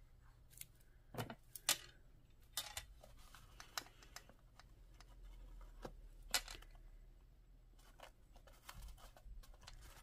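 Faint handling sounds of paper crafting: scattered light clicks, taps and rustles as cardstock pieces and a folded cardstock box are picked up and handled. The sharpest clicks come about a second and a half in and around six seconds in.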